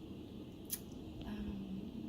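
Low room tone with a short sharp hiss or click about three-quarters of a second in, then a faint low hum of a voice for about half a second.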